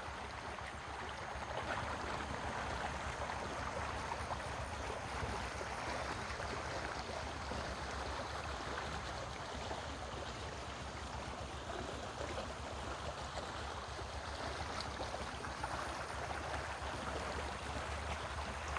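Shallow river water flowing and rippling over its bed, a steady even rush.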